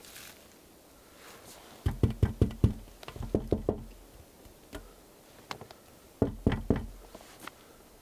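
Knuckles knocking on the solid logs of a log-walled dugout shelter: three rounds of four or five quick knocks, about two seconds in, just after three seconds, and after six seconds.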